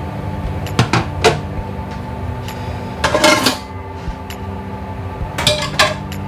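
Kitchen utensils and dishes clattering: a few sharp knocks about a second in, a longer clatter around three seconds in and again near the end, over a steady hum.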